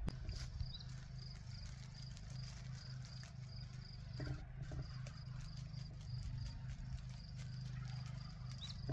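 Outdoor rural ambience: a short, high chirp repeats evenly two or three times a second, with an occasional bird call, over a low steady hum.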